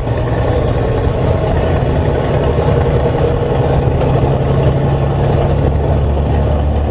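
Scania DSC9 turbocharged, intercooled six-cylinder diesel of a Scania F94 HB bus running steadily; its hum drops lower about five and a half seconds in.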